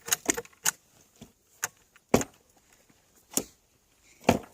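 Sharp metallic clicks and clacks of rifles and cartridges being handled, about eight irregularly spaced, with the loudest about two seconds in and near the end.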